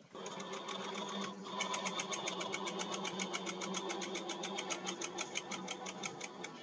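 Rapid, even mechanical clicking, about nine clicks a second over a low steady hum, as the MH28 benchtop mill's head is turned back upright; the clicks grow stronger about a second and a half in.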